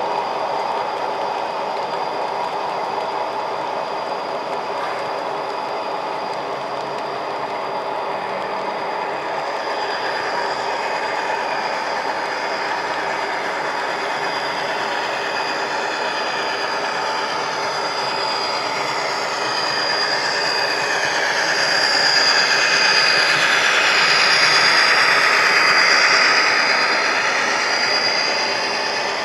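Model railroad freight cars rolling along the track: a steady rumble of wheels on rail with a thin, steady high whine. Past the middle it swells louder for several seconds, with wheel squeal as the cars pass.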